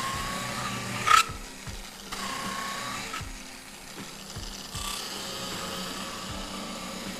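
A white oak whiskey-barrel stave is pressed against the spinning wheel of a bench-mounted grinder, taking the high points off its back side. There are three stretches of scraping, each with the tool's whine rising slightly in pitch under the load. The loudest thing is a sharp knock about a second in.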